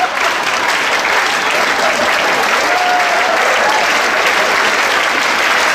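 Theatre audience applauding steadily for a completed acrobatic trick.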